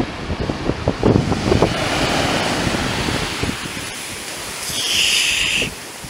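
Surf washing up a black-sand beach, with wind buffeting the microphone in the first couple of seconds. About four and a half seconds in, a wave's swash rushes up around the feet with a louder hiss of foam, which cuts off suddenly about a second later.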